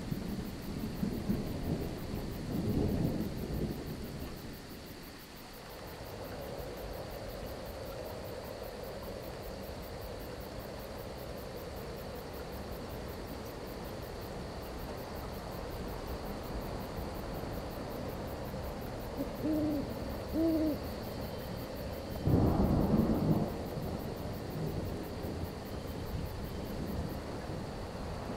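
Storm-and-night ambience: thunder rumbling and fading over the first few seconds under a steady hiss of rain, then an owl hooting twice about twenty seconds in, followed by a short, loud clap of thunder. Crickets chirp in an even high ticking throughout.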